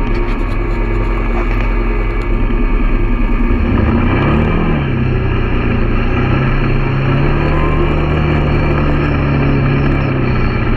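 Quad bike (ATV) engine running loud and close as it is ridden; about four seconds in it revs up and then holds a steady drone at speed.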